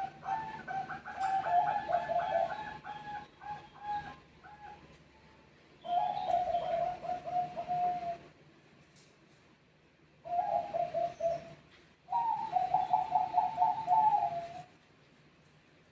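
Zebra doves of the Bangkok-bred perkutut strain cooing in four quick, rippling phrases, birds calling back and forth with short pauses between the phrases.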